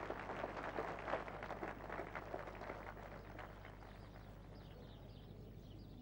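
Audience applauding, the claps thinning out and fading away over the first three or four seconds.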